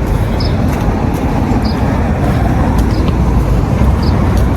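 Steady low rumble of a road vehicle running, with brief high squeaks every second or so.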